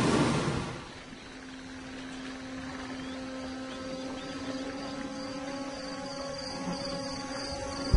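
A rushing noise fades out in the first second, giving way to a low, sustained musical drone. Crickets chirp steadily over it in a high, pulsing trill that grows clearer toward the end.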